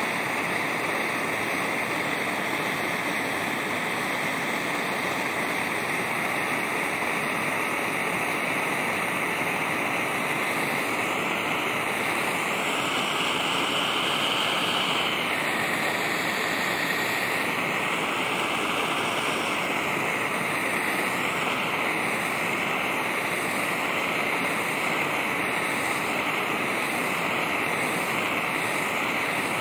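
Hand-held propane torch burning with a steady hiss while its flame heats the copper centre of a computer heatsink.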